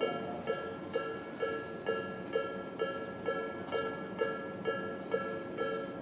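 Japanese level-crossing electronic warning bells (Tobu 'sound B' type) ringing in a steady repeating ding, about two strikes a second, while the crossing's warning lights flash.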